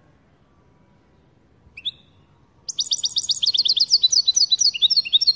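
European goldfinch calling: a single short two-note call about two seconds in, then, from near the three-second mark, a fast run of sharp, high 'pat-pat' notes at about six or seven a second. Keepers use this call to stir another goldfinch into song.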